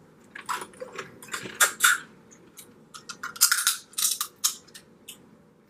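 Eating sounds at the table: a run of short clicks and smacks, with a louder cluster about three and a half seconds in.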